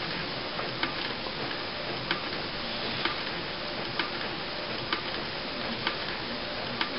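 Epson Stylus Photo R200 inkjet printer printing a colour test page: a steady hiss with faint ticks about once a second.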